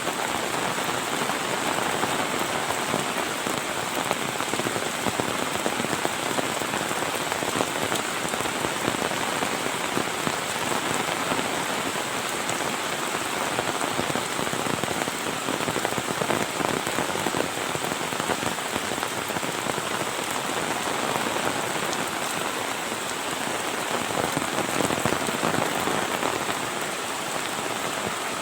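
Heavy rain falling steadily, a dense, unbroken patter of drops.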